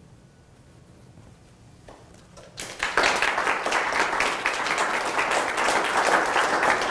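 Audience applauding, breaking out about two and a half seconds in after a quiet pause and keeping on steadily.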